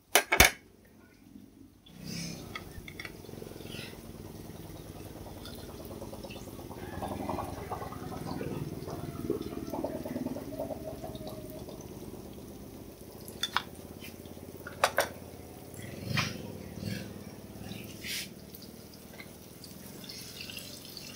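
Hot oil sizzling steadily as tofu deep-fries in a wok, with a loud clatter of utensils near the start and a few sharp clinks of chopsticks or a spatula against the pan later.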